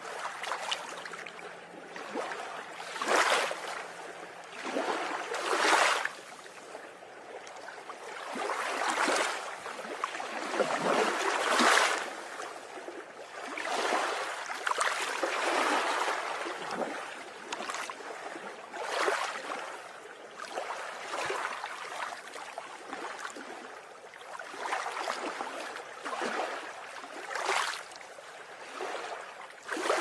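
Sea waves breaking and washing in, the surf swelling loud every few seconds with a steady rush between the breakers.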